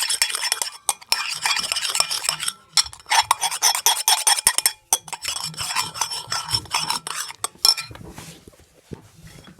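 Slime mixture being stirred in a bowl, a utensil scraping and clicking against the sides in quick bursts with short pauses. It grows fainter for the last couple of seconds.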